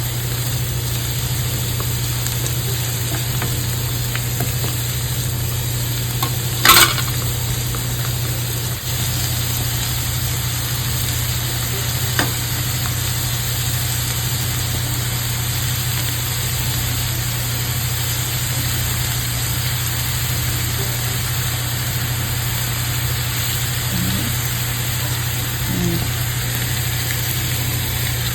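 Chopped onions, garlic and sliced carrots sizzling steadily in hot oil in a pan, over a steady low hum. One sharp knock about seven seconds in, with a fainter tick a few seconds later.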